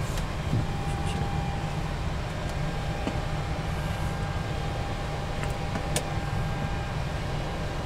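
Steady cockpit noise of a Boeing 737 on the ground with the APU running and systems powered: air-conditioning and fan hum and hiss with a thin steady whine, and a single switch click about six seconds in.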